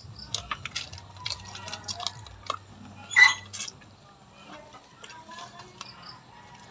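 Close-up eating sounds: small wet clicks and smacks of chewing on boiled chicken feet, with one louder sharp, noisy sound about three seconds in.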